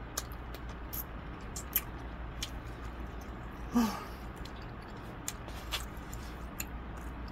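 Scattered wet mouth clicks and lip smacks of a man eating barbecue-sauced ribs and licking sauce off his fingers, with one louder mouth sound about four seconds in, over a low steady hum.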